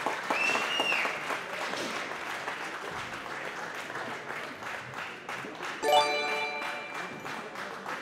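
Audience applauding a medal presentation. A whistle rises and holds briefly near the start, and a short, loud pitched blast cuts through the clapping about six seconds in.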